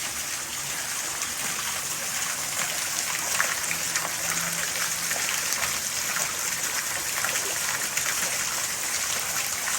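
Heavy rain pouring down steadily, with running and splashing water.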